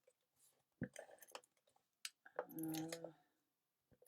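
Quiet handling of paper-craft supplies on a desk: scattered light clicks and rustles of paper and a lidded supply being handled, with a brief low hum about two and a half seconds in.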